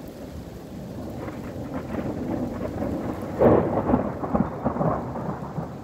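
Thunder over steady rain: a low rumble builds from about a second in, breaks into a sudden loud clap near the middle, then rolls on and dies away.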